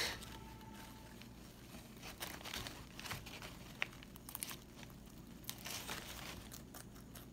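Crumpled brown kraft paper bedding crinkling and rustling as guinea pigs move about in it, a string of faint irregular crackles with one sharp click a little under four seconds in.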